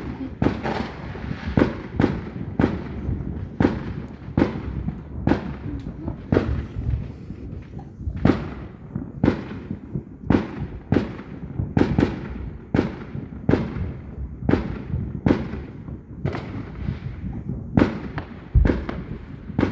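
Fireworks exploding in a rapid, steady series of sharp bangs, about two a second, over a continuous low rumble.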